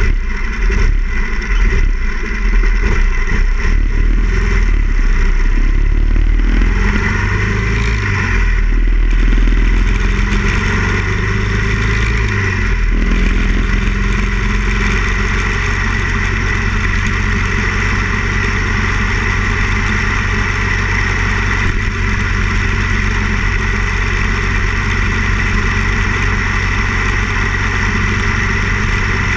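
Harley-Davidson Ironhead XL1000 Sportster's air-cooled V-twin heard while riding. The engine note rises in pitch as the bike pulls away, drops suddenly about thirteen seconds in at a gear change, then runs steadily at cruising speed.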